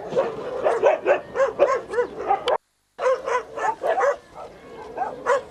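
Rapid run of short, yelping animal calls, several a second, cutting out completely for a moment about halfway through.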